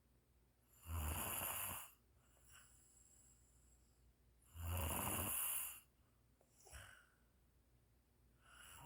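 Snoring in sleep: two loud snores, each about a second long and roughly four seconds apart, then two fainter, shorter breaths near the end.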